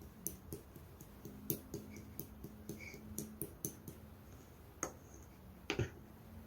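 Blue clear slime being pressed and poked by hand, making a run of small irregular clicks and pops, with two louder pops near the end, over a faint steady hum.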